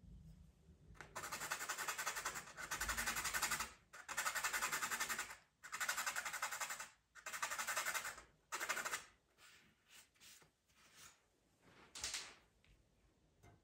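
Pastel pencil rasping against a rough, gritty surface in long scratchy strokes, each a second or more long with short pauses between. From about nine seconds in come shorter, lighter strokes.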